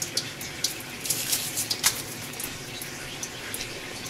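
Gloved fingers poking through flood-coolant-filled pockets and loose aluminium chips: a string of small wet splashes and sharp clicks over a steady hiss.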